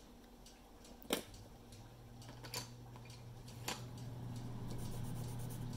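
Wooden colored pencils clicking as they are picked up, knocked together and set down on a table, a few sharp separate clicks over a low steady hum that comes in about a second in.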